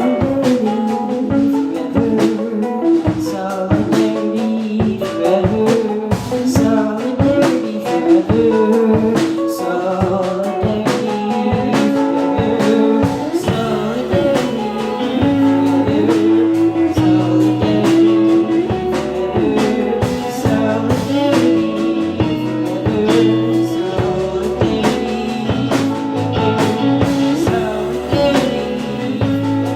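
An indie rock band playing live: electric guitars, bass and a drum kit keeping a steady beat, with a singing voice.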